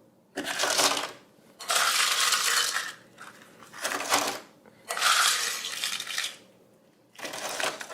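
Ice cubes crunching and rattling in a Cuisinart snow cone maker as it crushes ice, in five separate bursts of about a second each.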